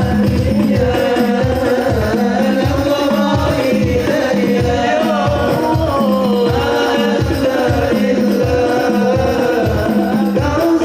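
A voice singing a sholawat melody over music with a steady hand-drum beat, about two strokes a second, and a held low note.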